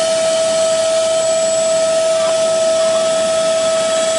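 Carpet shampooer's suction motor running steadily with a constant whine while its hose hand tool sucks water up out of the carpet.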